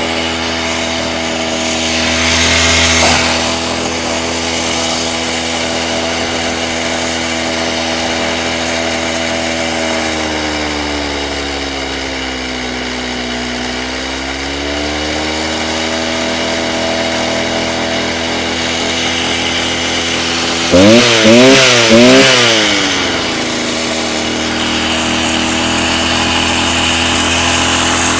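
Stihl TS350 Super cut-off saw's two-stroke engine running steadily while its carburettor is tuned, freshly rebuilt with a new piston and cylinder. The engine speed sags slowly about halfway through and recovers. Near three-quarters through there is a quick run of throttle blips before it settles back to a steady run.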